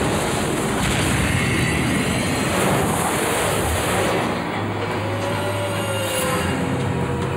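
Animated space-battle sound effects: a dense, steady rumble of spacecraft engines and explosions with music underneath, and a slow wavering whine rising out of it about halfway through.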